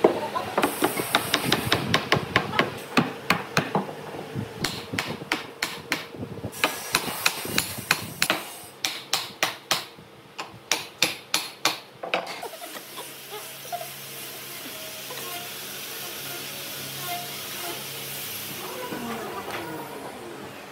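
Hammer striking a wooden furniture frame to drive its joints home, in quick repeated blows that slow and space out before stopping about twelve seconds in. After that a steady low machine hum runs on.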